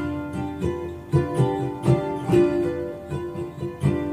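Ukulele strummed and picked, chord after chord with ringing notes, playing an instrumental introduction with no singing yet.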